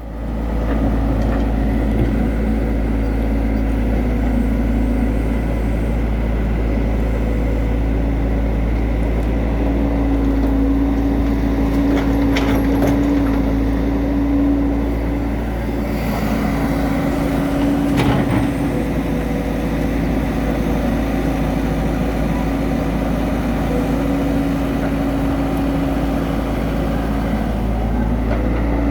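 Excavator's diesel engine running under load with its hydraulics working: a steady drone with a low rumble and a tone that comes and goes as the arm moves, and a couple of short sharp knocks partway through.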